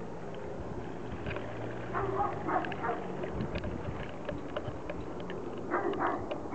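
A steady low drone, sounding like a distant plane engine, of unknown origin. A dog barks in short clusters about two seconds in and again near the end, louder than the drone.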